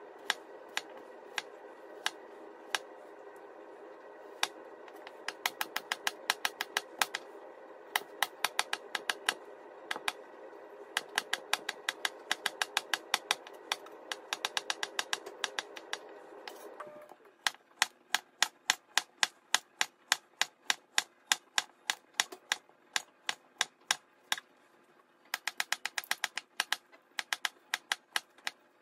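Chef's knife chopping a potato and then a Korean zucchini into thin strips on a plastic cutting board: sharp, quick taps of the blade on the board, several a second, in runs with short pauses.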